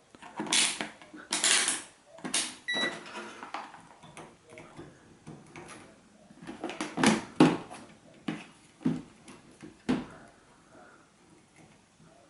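Scattered clicks, knocks and scrapes of hands and multimeter probes working on the terminals of a washing machine's water inlet solenoid valves while measuring their resistance. A short, high beep sounds once, a little under three seconds in.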